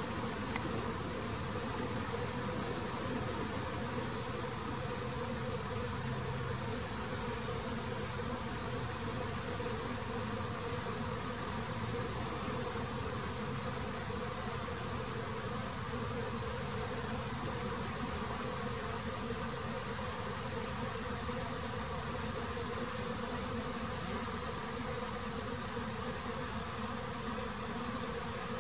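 Honeybees buzzing around the hive in a steady drone. A high-pitched insect chirp repeats about twice a second over it and fades out about halfway through.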